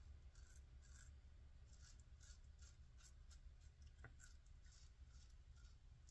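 Faint, rhythmic scratching of a Merkur 34C safety razor with an Astra blade cutting lathered stubble, short strokes about two a second, with one small tick about four seconds in.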